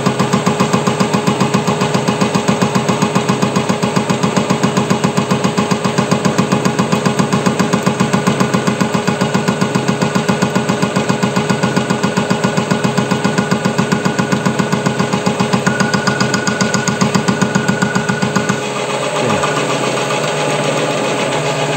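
WM210V bench lathe under power with the cutter in the cut, a pulsing cutting noise several times a second as the chuck turns. A few seconds before the end the pulsing stops and the lathe runs on smoothly, the tool out of the cut.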